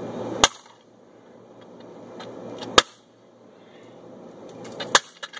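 Three hard smashing blows about two seconds apart, each preceded by the rising whoosh of a swing, as a swung tool strikes a plastic LEGO Darth Vader alarm clock.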